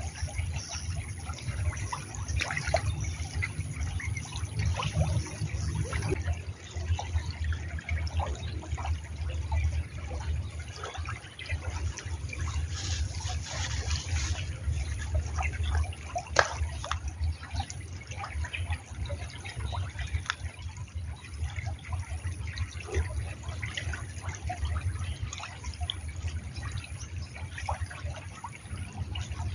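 Stream water trickling steadily, with many small clicks and drips scattered through it over a low rumble.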